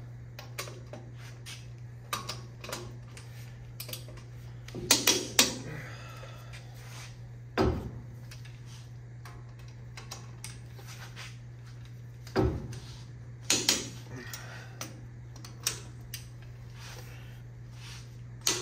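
Ratchet and socket clicking and hand tools clanking on metal as the hub assembly bolts are tightened on the truck's front steering knuckle, in scattered clicks and short clusters, over a steady low hum.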